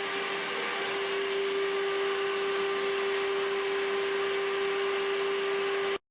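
Home-built CNC gantry router running: a constant single-pitch whine over a steady hiss, cutting off abruptly near the end.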